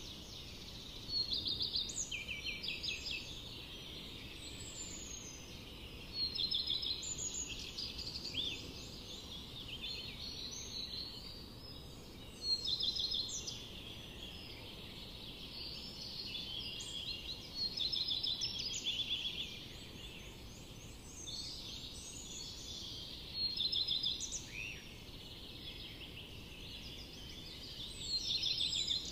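Many small birds chirping and twittering at once, in rapid high trills, swelling into louder bursts every five or six seconds over a low background hiss.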